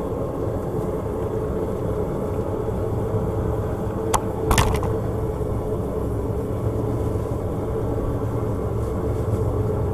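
Steady drone of a running forge, with a constant hum and low rumble, while a hot bar is twisted in a vise; two sharp clicks about four seconds in.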